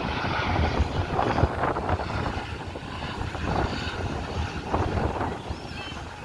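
US Coast Guard HH-65 Dolphin helicopter running during a rescue demonstration, its rotor giving a steady, fast low throb over the rush of the turbine and rotor wash.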